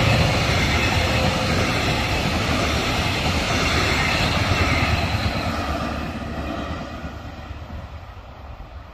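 A class 246 diesel locomotive hauling double-deck passenger coaches passes close by. The locomotive's engine and the rumble of wheels on the rails are loudest at first, then the coaches roll past and the sound fades as the train draws away.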